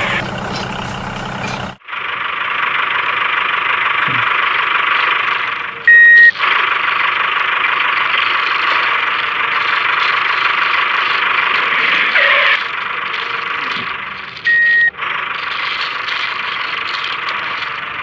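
Small electric motors of a DIY miniature tractor rig running with a steady high whine. The sound changes abruptly about two seconds in, and two short, loud, high beeps come about nine seconds apart.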